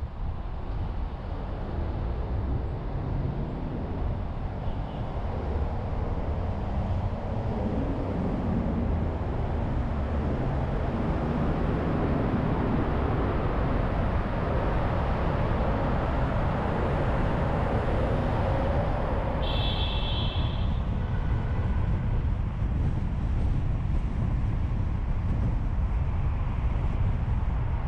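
Steady road and traffic noise from a moving car on a city street, heard from outside the car. A brief high squeal comes about twenty seconds in.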